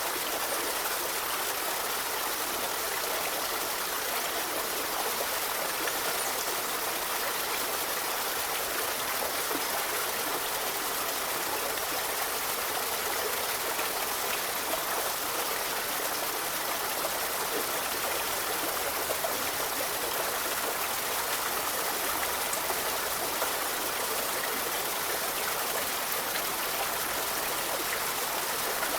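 Forest river flowing: a steady rush of water over stones, with light trickling and gurgling.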